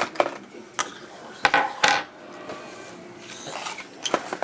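Small hard plastic toy parts and packaging being handled: scattered clicks and light clatter, with a short burst of rattling about one and a half seconds in.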